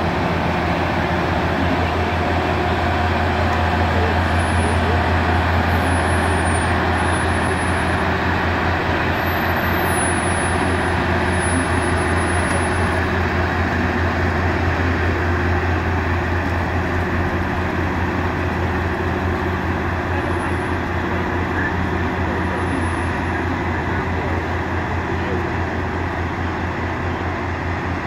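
Mount Washington Cog Railway diesel locomotive running as it moves a passenger coach along the cog track: a loud, steady low engine drone that eases slightly toward the end.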